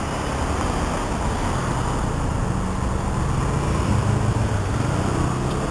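City street traffic noise, with a motor vehicle's engine running close by.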